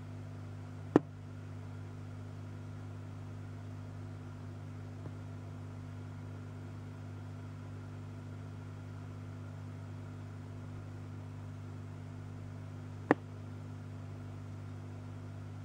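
Steady low electrical hum, with two sharp clicks: one about a second in and one near the end.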